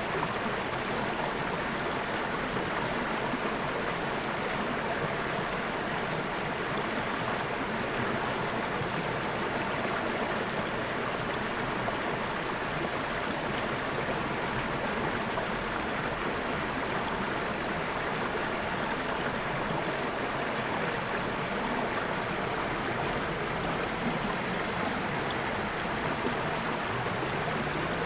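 Water flowing steadily in a natural stream, an even rushing sound that does not change.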